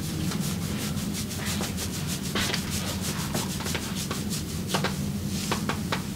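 Massage: hands rubbing briskly over skin in quick, rhythmic strokes, a few a second, with a few sharper strokes near the end.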